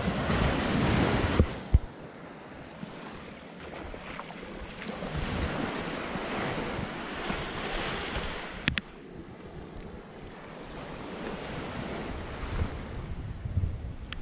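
Ocean surf washing ashore in surges, with wind buffeting the microphone; the wash is loudest in the first second or so and swells again midway. A single sharp click about two-thirds of the way through.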